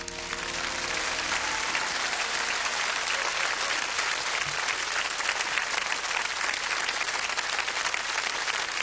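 Large audience applauding with steady, dense clapping. The last held chord of the song fades out under it during the first second and a half.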